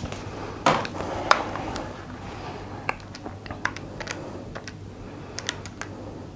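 Keys of a handheld calculator being pressed one after another: an irregular run of small clicks, a few louder ones in the first second or two, then quicker, lighter taps.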